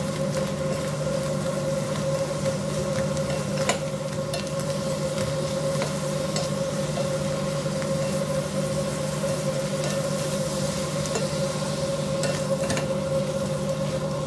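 Shrimp sizzling in butter and chilli sauce in a pot as a spatula stirs them, with a few sharp clicks of the spatula against the pot. A steady hum runs underneath.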